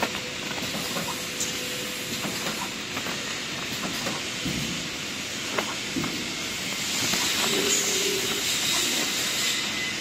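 A PVA detergent pod production machine running: a steady hiss with scattered light clicks, the hiss growing louder about seven seconds in.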